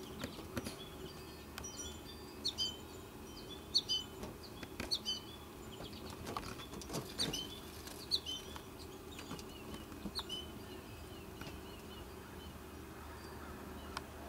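Goldfinch chirping: short, high chirps repeated irregularly, thick at first and thinning out after about ten seconds, with a few faint clicks between them.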